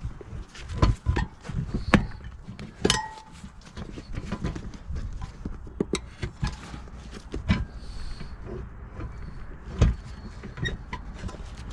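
Dirt bike tire's first bead being pushed by hand down over the rim: irregular knocks and thumps, with a few short rubber squeaks.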